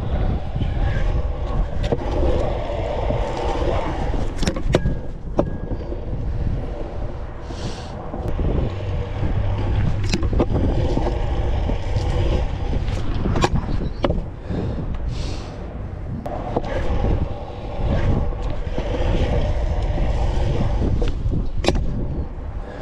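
Stunt scooter wheels rolling over concrete in a steady rumble, broken by frequent sharp clacks of the deck and wheels knocking against the ground.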